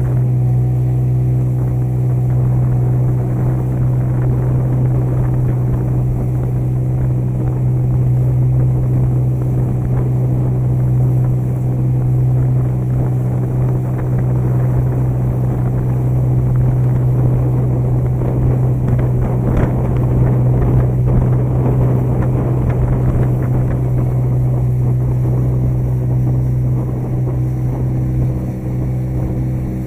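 Small motorboat's engine running steadily underway, a constant low drone, with a louder rush of noise over it for a few seconds past the middle.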